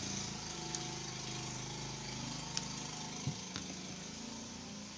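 A motor engine running steadily, swelling at the start and easing off towards the end, with a few sharp clicks over it.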